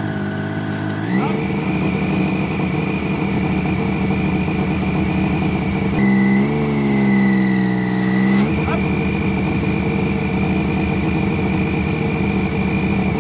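Street bike's engine running steadily in gear, driving the chain and rear wheel. Its revs step up about a second in, drop back and waver around the middle, then rise again a couple of seconds later.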